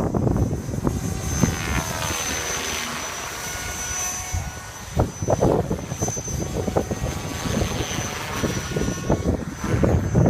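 Logo 480xx electric RC helicopter flying, its brushless motor and rotors giving a steady high whine, with the pitch sliding for a moment as it passes. Gusts of wind batter the microphone about halfway through and near the end.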